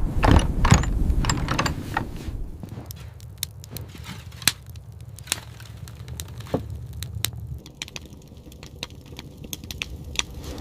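Wood fire crackling: irregular sharp pops and cracks. The first two seconds are denser and louder, with a low rumble under them.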